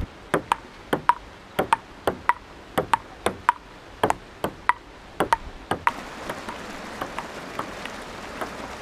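Table tennis rally: a celluloid ball clicking sharply off bats and the tabletop, often in quick pairs of hit and bounce, about two or three a second. About six seconds in, the clicks turn fainter over a steady hiss.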